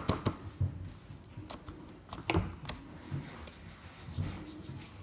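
Hands squishing and kneading homemade slime, with irregular sticky clicks and pops and soft low thumps.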